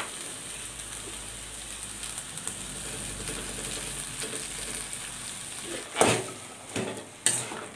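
Frying sizzle from cooked tapioca and onion tempering in a steel pan, then a steel spoon knocks against the pan three times near the end as the tapioca is stirred in.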